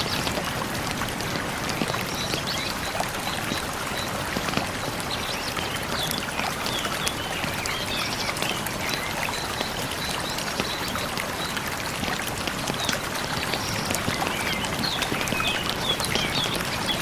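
Stream water flowing in a steady rush, with small crackling pops of a campfire scattered through it. A bird twitters in two spells, several seconds in and again near the end.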